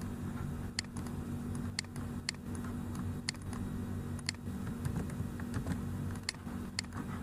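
Sharp clicks from a computer mouse and keyboard, roughly one a second at an uneven pace, over a steady low hum.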